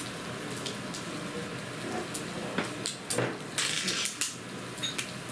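Restaurant clatter: a steady hiss with scattered clinks and taps of dishes and cutlery.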